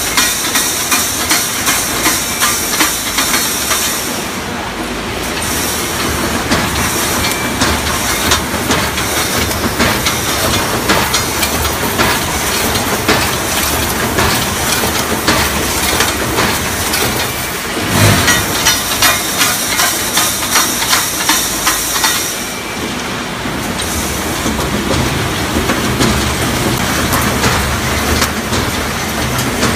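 3D EPS panel wire mesh welding machine running: a regular clacking about three times a second from the welding cycle, over a steady hiss and machine noise.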